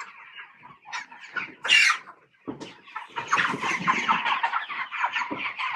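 A flock of Cornish cross broiler chickens clucking and calling, many short overlapping calls. One call stands out just under two seconds in, and after a brief lull the flock grows busier from about three seconds in.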